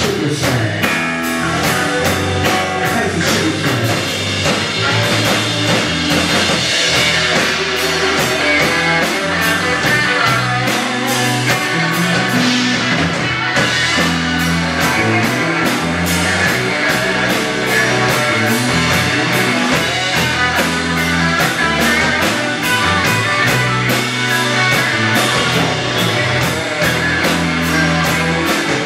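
Rock band playing live in an instrumental passage: electric guitars, electric bass and drum kit, with a steady beat.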